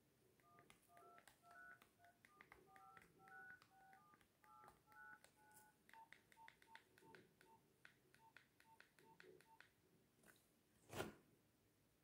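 Nokia 1110i keypad sending DTMF tones during a call: a quick run of short two-note beeps as keys are pressed, then a slower run of short single beeps, with faint key clicks. A single thump near the end.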